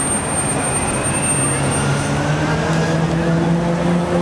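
Busy city street ambience: a vehicle engine's steady hum comes in about a second in over a continuous haze of traffic and voices, with a faint high whine in the first two seconds.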